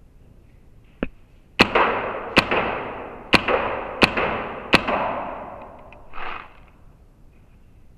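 Paintball marker fired five times, sharp cracks under a second apart, each ringing on in a long echo off the bare concrete room. A lighter click comes just before them and a short, softer noise follows.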